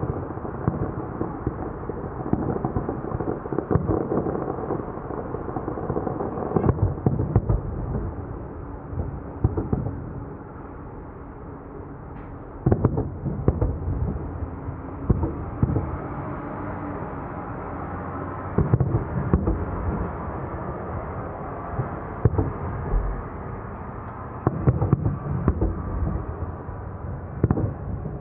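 Fireworks display: a continuous run of deep booms and pops, with a louder cluster of bursts every few seconds.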